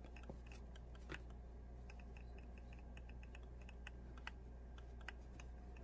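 Faint, quick clicks and rustles of hands handling a stuffed knit sock and polyester fiberfill, over a low steady hum.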